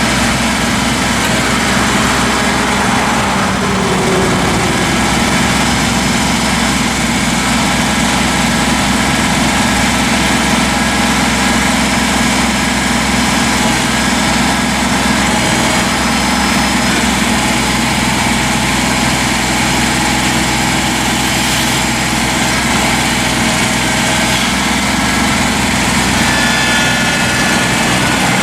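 Three-cylinder Kubota diesel engine of a compact tractor running steadily at an even speed.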